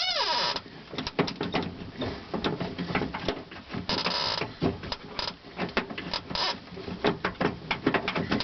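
Rapid irregular clicks, rattles and scrapes of a car's exterior door handle and lock mechanism being worked loose with a small tool, with short scraping noises at the start and about four seconds in.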